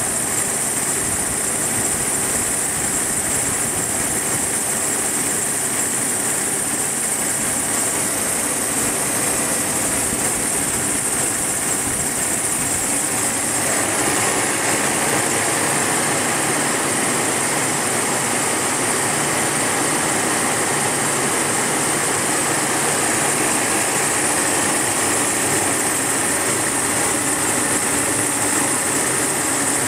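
Mercedes SL600's 6.0-litre V12 engine running, with an added noise from the engine bay that rises with engine RPM; the tags point to the belt drive. It gets louder about halfway through.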